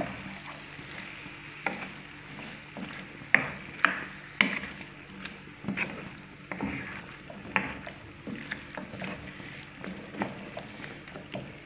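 A spatula stirring diced pumpkin with onion and peppers in a non-stick frying pan, with irregular scrapes and knocks as the pieces are turned over a soft frying sizzle.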